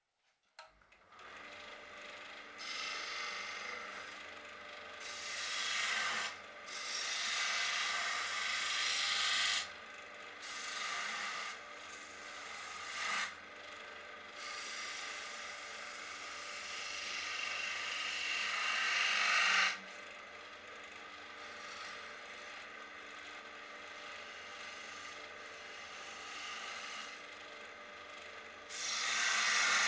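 Wood lathe running with a turning tool cutting a spinning wooden box blank: a steady motor hum under repeated scraping, hissing cuts, each lasting a few seconds with short pauses between. It begins about a second in.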